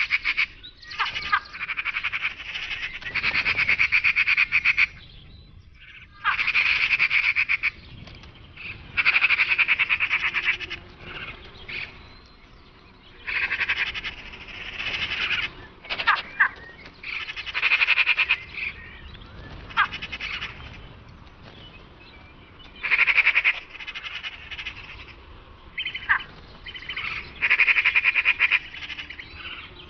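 Magpies chattering: harsh, rapid rattling calls in repeated bursts, some short and some lasting a second or two, with brief pauses between them.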